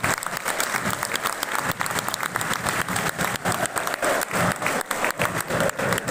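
Crowd of football fans in a stadium stand applauding, with sharp claps close by standing out from the general clapping.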